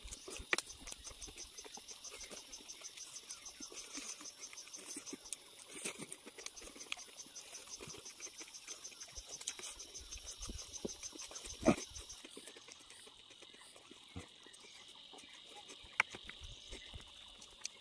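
Insects trilling in the surrounding forest: a steady high buzz throughout, and a faster pulsing trill above it that stops abruptly about twelve seconds in. Scattered soft clicks and smacks from eating by hand, with one sharp click shortly before the trill stops.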